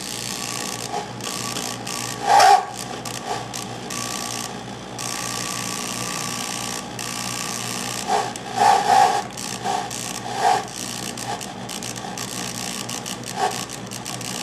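Cordless drill turning slowly with a drill-out extractor bit cutting into a broken steel exhaust manifold stud in a KA24DE cylinder head: a steady grinding rasp broken by short louder squeals, one about two seconds in and several between eight and ten seconds. The extractor is still cutting and has not locked onto the stud.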